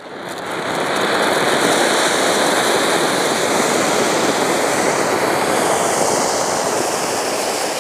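Ground fountain firework (matka anar) spraying sparks with a steady, loud hiss that builds up over about the first second and then holds even.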